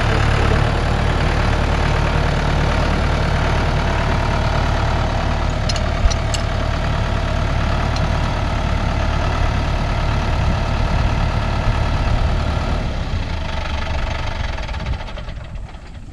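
A vehicle engine running steadily, dying away over the last couple of seconds.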